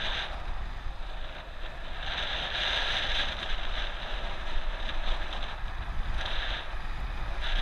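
Wind rushing over a GoPro microphone on a moving bicycle, with a steady low rumble, swelling in gusts about two to three seconds in and again near the end.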